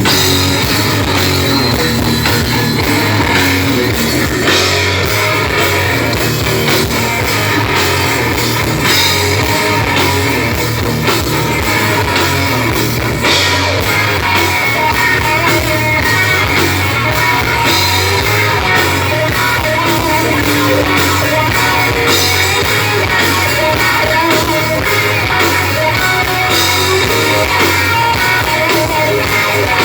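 Rock band playing live: electric guitars and a drum kit, loud and steady.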